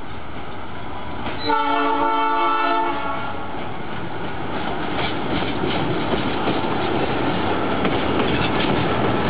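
Ex-TasRail diesel locomotive 1004 sounds its horn once, a chord of several tones lasting about a second and a half, starting a second and a half in. Its engine and wheels then grow louder as it comes close and passes with its carriages, the wheels clicking on the rails.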